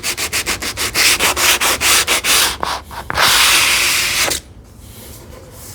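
Hand sanding a wooden panel's edge with 320-grit sandpaper: quick, short back-and-forth strokes, about five a second, then one longer stroke, stopping about four and a half seconds in. The sharp arris is being eased to a slight round.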